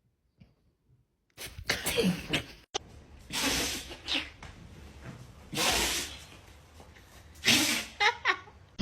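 A dog sneezing over and over, sharp noisy bursts coming about every two seconds, starting about a second and a half in.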